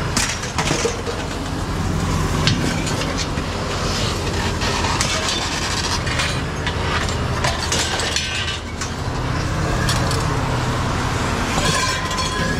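A motor running steadily with a low rumble, with irregular knocks, clicks and rattles over it throughout.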